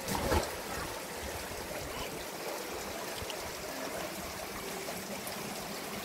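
Steady running and trickling water of a spring-fed stream in a narrow rock canyon, with a brief knock right at the start.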